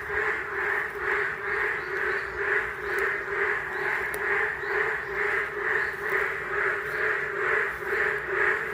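A chorus of frogs calling continuously, a dense pulsing croak that swells about two to three times a second.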